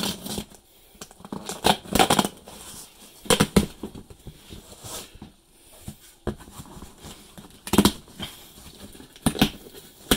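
Packing tape on a cardboard shipping box being slit with a screwdriver and the flaps torn open: a series of short rips and scrapes of tape and cardboard.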